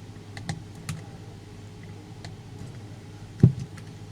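Light clicks and taps of hand tools and small parts being handled while the speaker amplifier's volume control is unfastened, with one louder sharp knock near the end.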